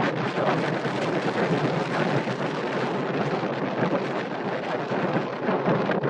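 Strong wind buffeting a compact camera's microphone: a loud, steady rumbling rush that covers all other sound.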